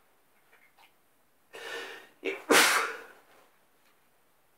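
A person sneezing once. A pitched, drawn-in "ah" breath begins about a second and a half in, then comes a short catch and a sharp, explosive sneeze just after two and a half seconds that quickly fades.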